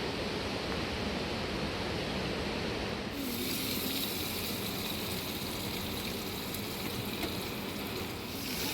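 Steady rushing water. Its tone changes abruptly about three seconds in, when a brighter, hissier noise comes in.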